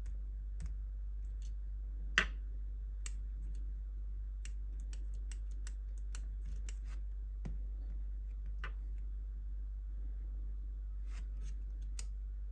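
Fingertips tapping and clicking on a NanoVNA antenna analyzer's touchscreen and buttons: scattered light clicks, with one sharper click about two seconds in. A steady low hum runs underneath.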